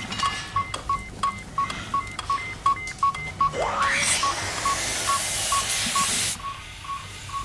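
Patient monitor beeping fast and steady, about three beeps a second. About three and a half seconds in, a rising whistle opens into a loud hiss of gas as the ventilator is turned up; the hiss cuts off suddenly about two and a half seconds later.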